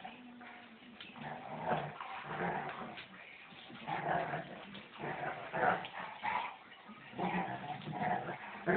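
Two German Shepherds play-fighting, growling in short irregular bursts as they wrestle. The growls are play, not aggression.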